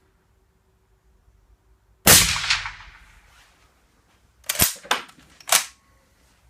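A suppressed .308 Winchester rifle shot from a Merkel RX.Helix with an ASE Utra Z-Jet Compact suppressor: one sharp report about two seconds in, dying away over about a second. About two and a half seconds later come three short, sharp metallic clacks, which fit the straight-pull bolt being cycled to reload.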